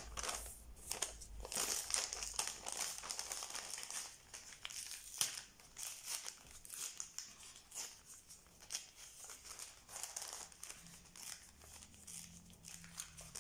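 Kraft-paper envelope rustling and crinkling as it is handled and opened by hand. The crackling is dense for the first few seconds, then comes in sparser handling noises.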